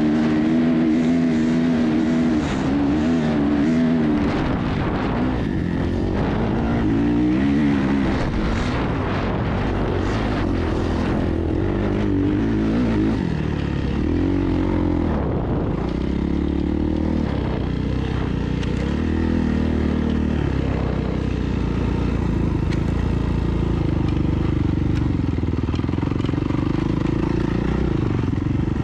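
Dirt bike engine being ridden, its pitch rising and falling again and again as the throttle opens and closes, then running more steadily near the end.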